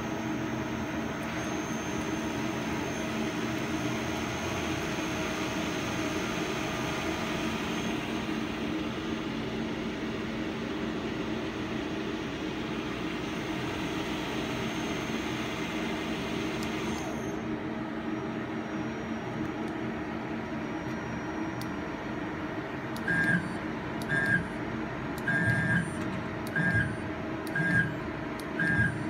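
CNC lathe running with its spindle turning: a steady machine hum with several steady tones and a hiss, and the hiss cuts off about 17 seconds in. Near the end, a run of short two-tone beeps about once a second, each with a low thump.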